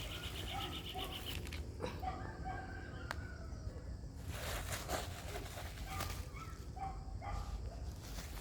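Short, scattered animal calls over a steady low hum, with a brief quick rattle at the start.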